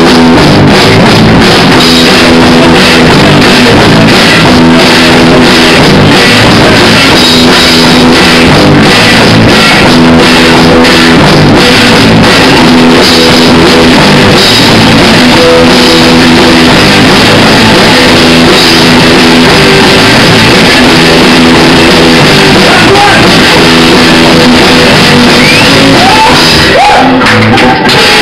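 Live rock band playing at full volume: electric guitars, bass and a drum kit, with a singer, recorded so loud that the sound stays pinned at the top of the level. The sound breaks off briefly near the end.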